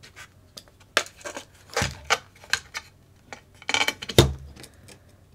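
Small RC car kit parts being handled and fitted together by hand: irregular sharp clicks and taps, with a louder knock about four seconds in.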